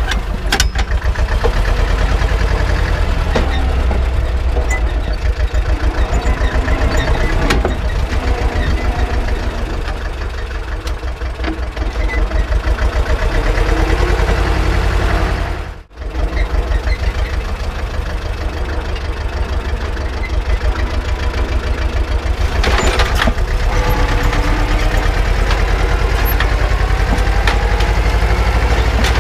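Tractor engine running steadily with an even, pulsing beat, mixed with the clicking and rattling of a mechanical seed drill working behind it. The sound breaks off for a moment about halfway through, then carries on.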